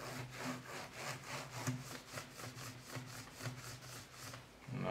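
A paper towel damp with glass cleaner rubbed quickly back and forth over a laptop keyboard's keys, a steady run of scrubbing strokes, about three or four a second.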